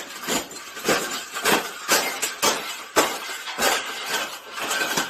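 A steady series of sharp knocks with a clinking ring, about two a second.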